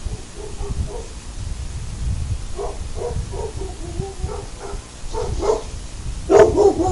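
Dogs barking, a pit bull/mastiff mix and a pit bull/Chesapeake mix: faint, muffled barks at first, then loud barking starting about six seconds in.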